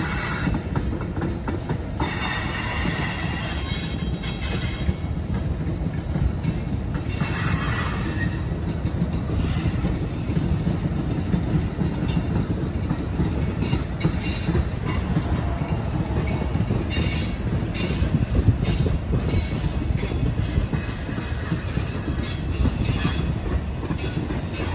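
Loaded coal hopper cars of a freight train rolling past: a steady low rumble of steel wheels on rail, with brief high-pitched squeals from the wheels now and then.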